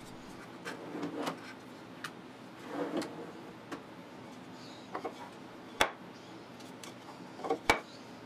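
Hidden drawer and its magnet-held molding cover being handled: faint wooden sliding and rubbing, then two sharp clicks in the second half as the steel plates on the cover snap onto the magnets set in the bookcase base.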